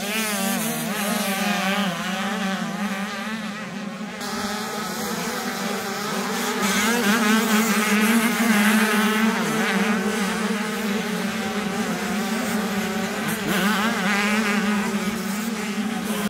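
Several 85cc two-stroke motocross bikes racing past, engines revving up and down through the gears, the pitches of different bikes rising and falling over one another, loudest about halfway through.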